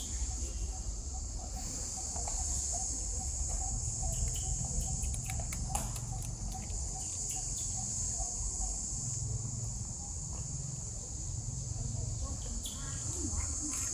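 A steady, high-pitched insect chorus, swelling and easing a little, over a low rumble.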